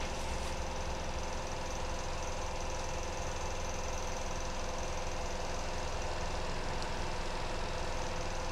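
Steady background noise with a constant hum, unchanging throughout, with no distinct event.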